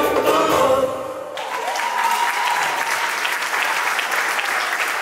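Music cuts off about a second in, and an audience breaks into applause with many hands clapping.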